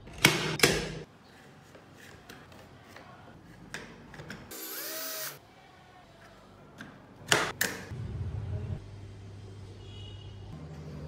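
Carved wooden model-truck parts being handled and fitted together: a few sharp wooden knocks and clicks just after the start and again past the middle, then a low steady hum in the second half.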